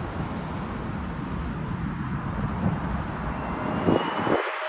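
Steady rumble of a twin-engine jet airliner's engines as it flies away low on landing approach. The rumble cuts off abruptly near the end.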